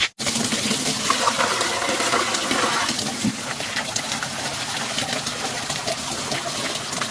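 Water gushing: a loud, steady rush.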